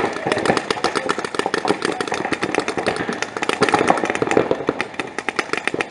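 Several paintball markers firing rapid, overlapping streams of shots, many shots a second with almost no let-up.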